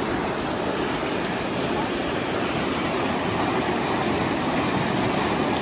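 Mountain stream rushing through rocky rapids: a steady, even rush of white water over boulders.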